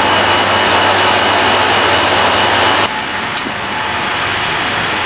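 Steady loud rushing noise with a faint high whine and a low hum, a constant air or machine noise; it steps down a little in level about three seconds in.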